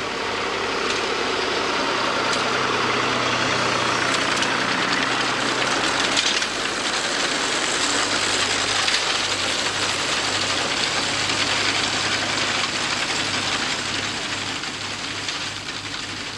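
McCormick tractor engine running steadily while pulling a working reaper-binder, together with the binder's mechanical clatter as it cuts and ties the grain into sheaves.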